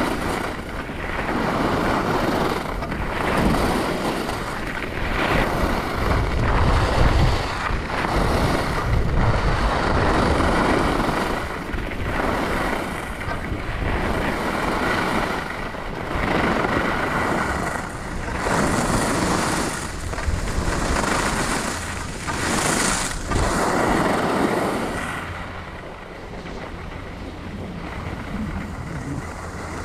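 Skis carving a groomed piste: a scraping rush of snow that swells with each turn, about every two seconds, with wind noise on the microphone. It turns quieter near the end.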